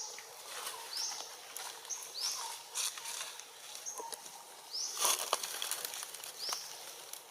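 A series of short, high-pitched rising chirps from an animal, about one a second, with a few sharp clicks around five seconds in.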